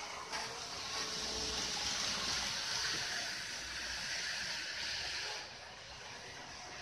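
Model train running on the layout track, a steady rushing hiss of wheels and motor that starts just after the opening moment and fades down about five seconds in.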